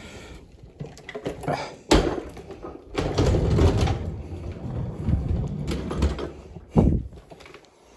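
Plastic knocks and rattling from handling an upright vacuum's dust container: a sharp knock about two seconds in, a rattling stretch a second later, and another knock near the end.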